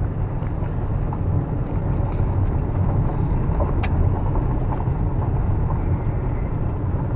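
A car driving along, heard from inside: a steady low rumble of road and engine noise. There is a single sharp click about four seconds in.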